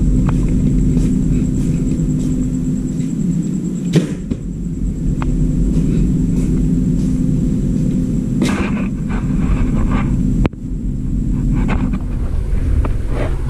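A steady low mechanical hum with a faint high whine, broken by a few sharp clicks and knocks.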